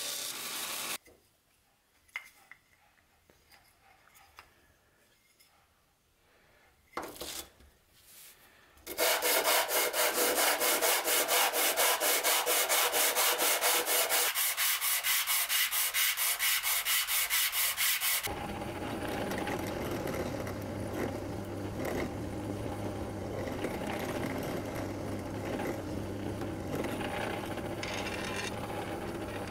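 Belt grinder sanding a wooden handle piece for about a second, then a few faint clicks. About nine seconds in, wooden handle scales are rubbed back and forth on a sheet of sandpaper in quick, even strokes, the loudest part. From about eighteen seconds a drill bores through the wooden scales with a steady whir.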